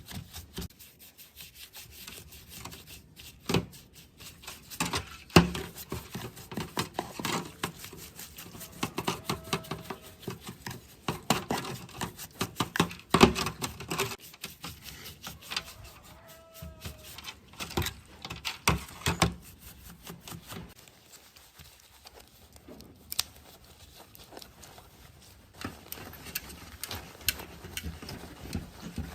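Irregular rubbing and scraping with many sharp clicks and knocks, the loudest about five seconds in and again about thirteen seconds in.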